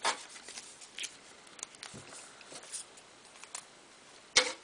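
Paper inserts from an iPod box rustling and crinkling as they are folded and set down by hand, with soft scattered clicks and a sharper click near the end.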